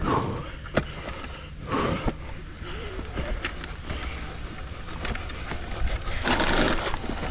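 Mountain bike rolling over a rough trail: tyres on dirt and rock, with sharp knocks and rattles from the bike, and wind rumbling on the chin-mounted camera's microphone. The ride gets louder and rougher near the end.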